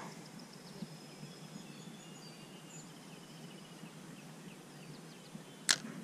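Faint outdoor background noise with thin high tones in the first half, and one sharp click near the end.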